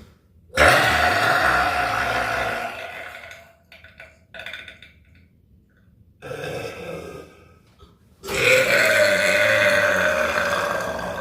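A person burping deliberately: two long, loud, drawn-out burps of about three seconds each, held at a steady pitch, with a shorter, quieter burp between them.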